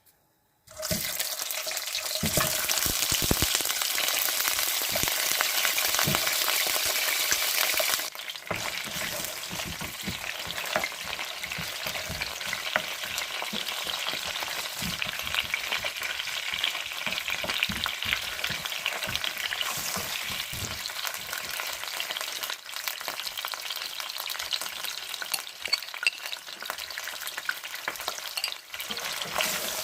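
Food sizzling in hot oil in a pan while it is stirred, with short knocks and scrapes of the stirring spoon against the pan. The sizzle starts suddenly about a second in, is loudest for the first several seconds, then settles a little lower.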